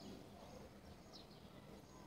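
Near silence: faint hiss with a faint high chirp at the start and another about a second in, from a European goldfinch between song phrases.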